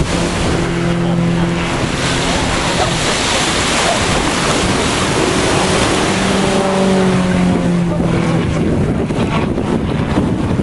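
Strong wind buffeting the microphone with a steady rushing noise. A droning tone rises out of it twice, briefly near the start and longer in the middle, the second sagging slightly in pitch.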